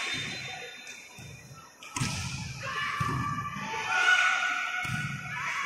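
A volleyball hit hard with a sharp thud about two seconds in, followed by raised voices.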